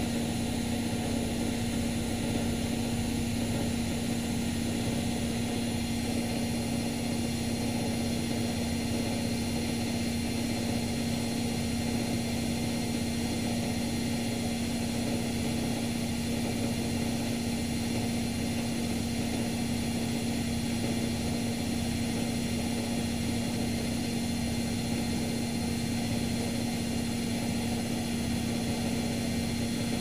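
Luxor WM 1042 front-loading washing machine in its spin cycle with an unbalanced load, running at a steady speed: a constant motor whine over a low, regularly repeating throb.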